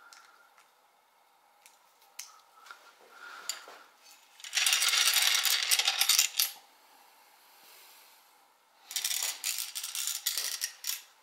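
Small loose metal parts, screws and nuts from a 3D printer kit, rattling and clinking together in two bursts of about two seconds each, one about four and a half seconds in and one about nine seconds in.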